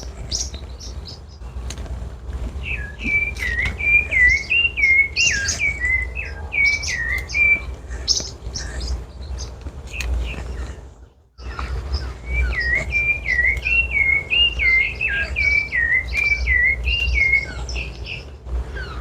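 A sabiá thrush singing: two long phrases of short, repeated warbling notes, with a pause between them. A steady low rumble runs underneath.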